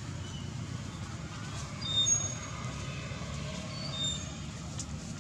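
Steady low hum of an engine running, with a few short high chirps about two and four seconds in.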